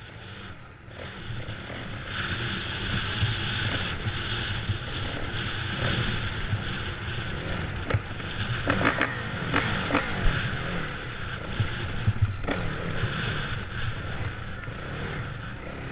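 Off-road racing motorcycle engine running under way, heard from a helmet-mounted camera with wind noise on the microphone. It builds up about two seconds in, with a few sharp knocks in the middle as the bike rides over rough, rocky ground.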